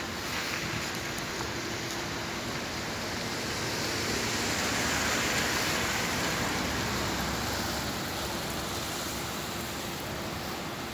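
A car driving past on the rain-wet street, its tyres hissing, swelling to a peak about halfway through and fading again, over a steady hiss of light rain.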